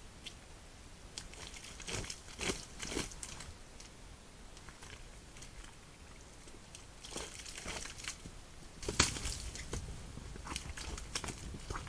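Red deer stepping through a mud wallow and the grass around it: scattered squelches, rustles and crackles, the loudest about nine seconds in.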